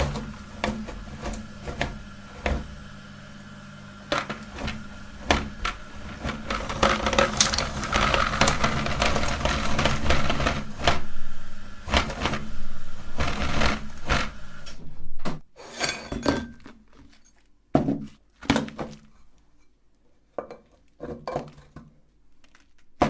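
Electric meat grinder running while hard candy cracks and crunches as it is ground, with many sharp cracks over a steady motor hum. The motor stops about fifteen seconds in, leaving scattered clicks and knocks.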